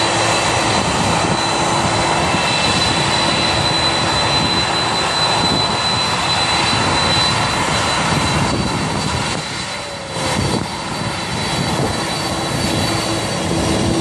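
Boeing 747-400's four turbofan engines running at taxi power as the jet turns onto the runway: a loud, steady rush of jet noise with a thin, high, steady whine on top. The noise dips briefly about ten seconds in.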